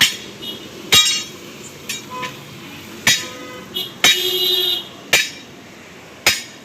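Heavy hammer blows on a steel truck wheel rim, about one a second, each a sharp metallic strike with a short ring, to break a stuck tyre loose from the rim.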